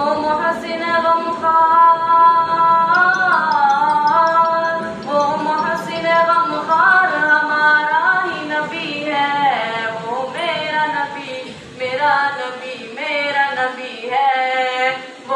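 A single high voice reciting in melody without accompaniment through a microphone, holding long ornamented notes that bend and glide, with short breaks for breath.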